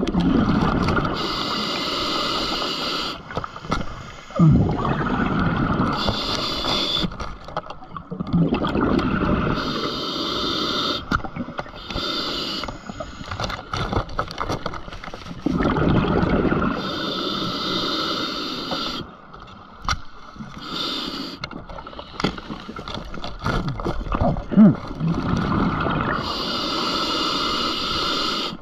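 Scuba diver breathing through a regulator underwater: a hissing inhale every few seconds alternating with a gurgling rush of exhaled bubbles.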